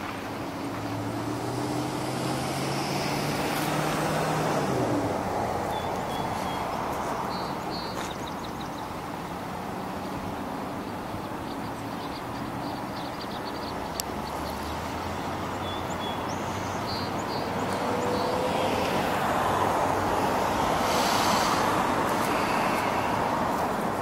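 Road traffic: a vehicle passes about four seconds in, its engine note dropping as it goes by, and the traffic swells again near the end. Faint short bird chirps and trills come through in between.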